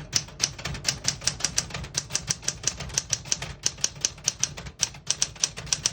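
1974 Smith-Corona Galaxie Twelve manual portable typewriter being typed on: quick, even key strikes, about six a second, with a short pause a little before the end.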